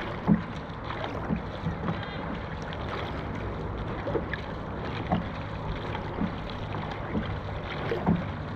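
Dragon boat crew paddling, with a short thump about once a second in time with the strokes, over steady water and wind noise.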